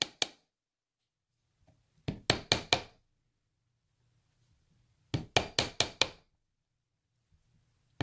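Light taps of a small steel hammer on copper wire lying on a steel bench block: sharp metallic clinks in two short runs of about five quick taps each, about two and five seconds in, with pauses between. The hammering flattens the wire clasp so its curves stiffen and won't easily bend.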